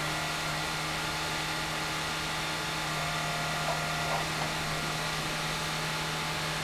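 Drill rig's diesel engine running steadily with a constant hum and a steady low tone, then dropping off abruptly at the end.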